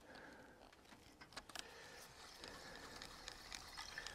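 Faint clicks and a quiet whir from a spinning reel on a feeder rod being wound in.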